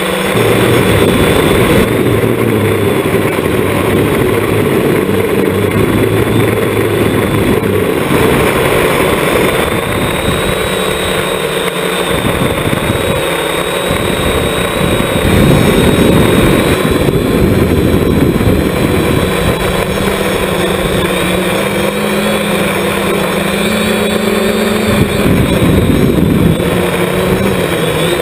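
The electric motors and propellers of an FPV multirotor drone, heard from its own onboard camera. They make a continuous buzzing rush whose pitch steps up and down several times as the craft flies.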